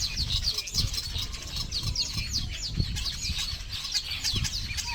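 A flock of small birds chirping densely and continuously, many short high calls overlapping, as in an evening roosting chorus. Irregular low rumble and thuds sit underneath.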